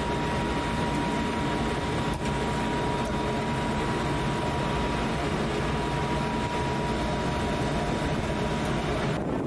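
Mark VI patrol boat's diesel engines running underway, a steady drone with wind and water hiss, and a steady high whine over it that stops near the end.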